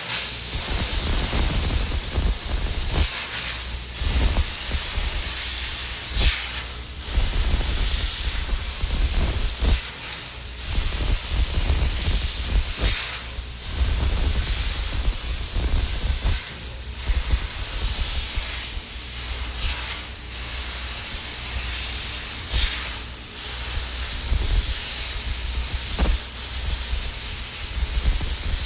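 CNC laser cutter cutting a lattice pattern in 1 mm sheet: a steady hiss over a low rumble, with a short, sharper burst of hiss every couple of seconds.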